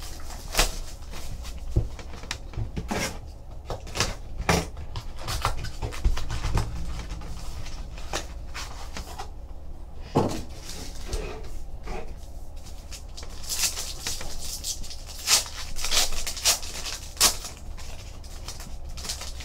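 Plastic shrink-wrap and foil trading-card pack wrappers crinkling and tearing as they are handled and opened, in irregular short crackles that grow denser in the second half.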